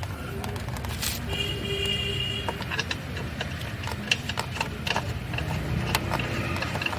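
Metal clicks and clinks of wheel nuts being spun onto the wheel studs by hand, over a steady low rumble. A short steady tone sounds for about a second near the start.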